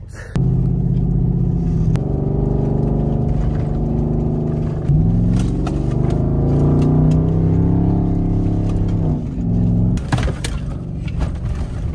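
Car engine and road noise while driving, starting abruptly; the engine note steps and glides up a few times as the car speeds up, then eases near the end.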